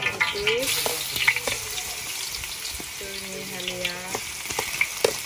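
Chopped aromatics sizzling as they are scraped off a plate into hot oil in a large wok. The sizzle sets in about a second in and holds steady, with scattered clicks of the metal spatula on the plate and the wok.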